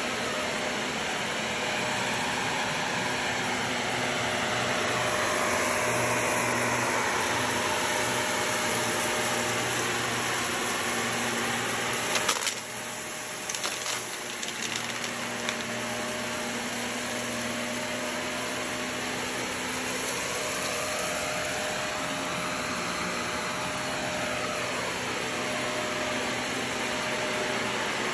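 Shark upright vacuum cleaner running steadily as it is pushed over carpet. About twelve seconds in there are a few sharp clicks, and after them it runs slightly quieter.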